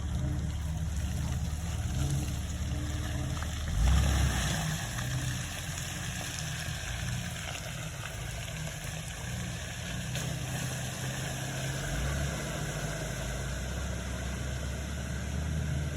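Jeep TJ engine running low and steady. About four seconds in it surges louder, and a rushing noise follows for several seconds.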